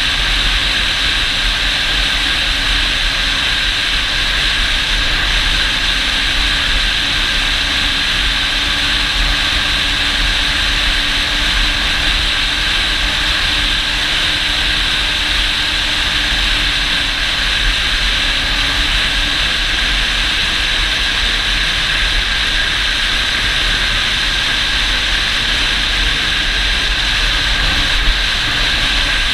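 ATV engine running at a steady speed under a loud, steady rush of wind noise over the microphone. The engine's pitch wavers only slightly.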